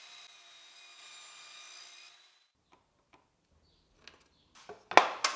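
A faint steady hum for about two seconds, then a few light clicks, then a quick cluster of loud, sharp wooden knocks and clatter near the end, as pieces of wood are handled and set down.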